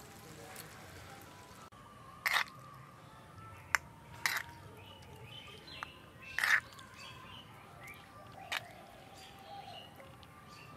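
Cooking utensils knocking against a pot, five sharp separate knocks spread over several seconds, with birds chirping faintly in the background.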